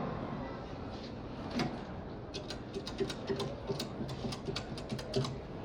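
A quick, uneven run of about a dozen sharp clicks over about three seconds, against a quiet room.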